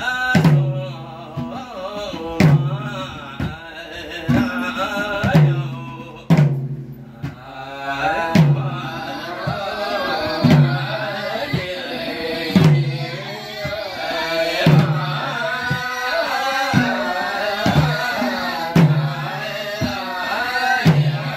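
Men chanting a slow Tamu (Gurung) ritual song of the Pae (Arghaun) death rite, accompanied by madal barrel drums. The drums give a deep bass stroke about every two seconds, with lighter strokes between.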